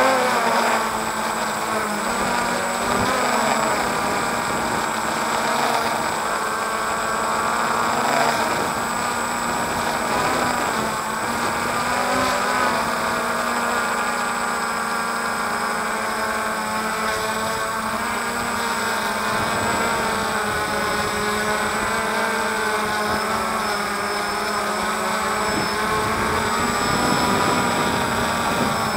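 DJI Phantom quadcopter's electric motors and propellers running steadily, heard from the drone's own camera. Several tones waver in pitch as the drone manoeuvres and descends.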